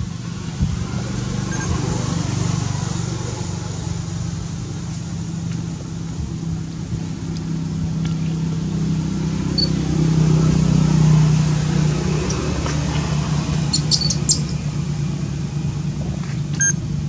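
A motor vehicle engine running nearby as a steady low hum that swells for a few seconds around the middle, with a few faint high clicks toward the end.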